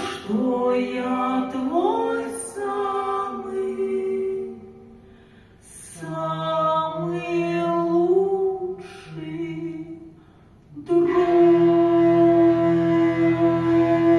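Live folk-style performance: a singing voice in sliding phrases, then a hurdy-gurdy comes in with its steady buzzing drone under the melody, swelling fuller near the end.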